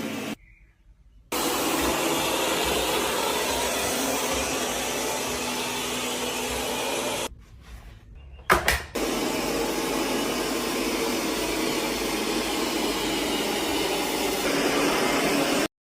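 Robot vacuum cleaner running with a steady whirring hiss. The sound cuts out twice briefly, with a sharp click about eight and a half seconds in, and stops abruptly near the end.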